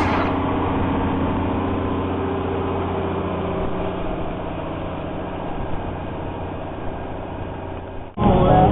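Engine of a harvest machine running steadily with an even low hum, cut off abruptly about eight seconds in.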